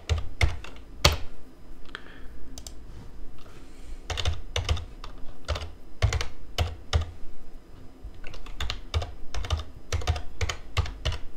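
Computer keyboard typing: irregular keystrokes, thinning out for a couple of seconds after the first second, then coming in quicker runs.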